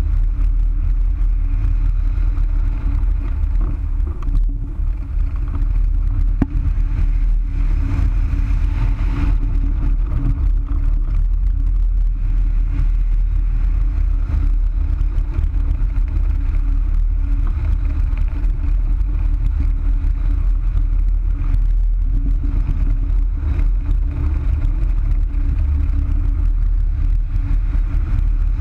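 Steady rush of flight wind buffeting the microphone of a camera mounted on the wing of a Wills Wing Falcon 3 hang glider in flight, mostly a deep rumble with a steady drone above it.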